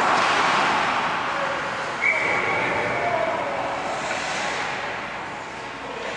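Ice hockey play on a rink: a continuous scraping hiss, typical of skates on the ice, that slowly fades. About two seconds in there is a sharp knock, like a stick or puck, followed by a short high steady tone.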